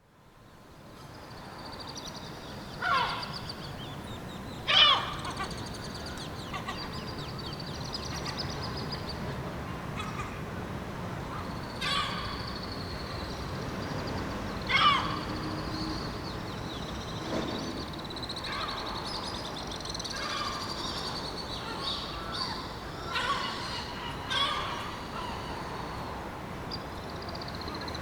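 Birds calling: loud calls that slide down in pitch come every few seconds over a constant high twittering of many smaller birds and a low background rumble.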